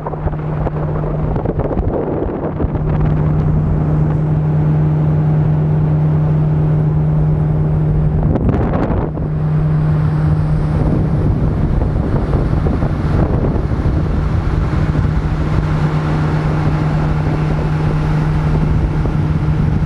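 A 115 hp outboard motor running at a steady high speed, pushing a boat along fast, with water rushing past the hull and wind buffeting the microphone. The engine note dips briefly about nine seconds in, then carries on unchanged.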